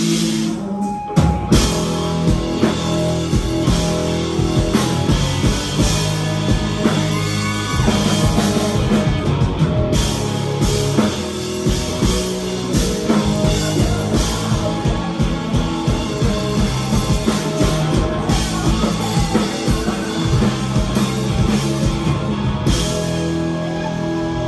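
Live rock band playing loud: electric guitars, bass and keyboard over a drum kit keeping a steady beat, with the drums coming in about a second in.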